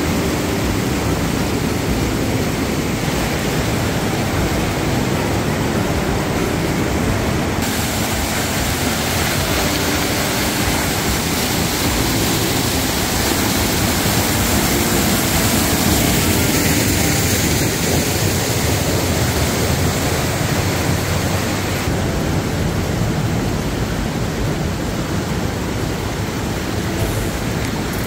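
Steady, even rush of water noise at the hot springs, with no break, its hiss shifting slightly about eight seconds in and again about 22 seconds in.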